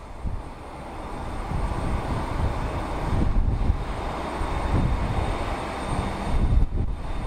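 Business jet on its takeoff roll, its jet noise building steadily louder, with gusty wind buffeting the microphone underneath.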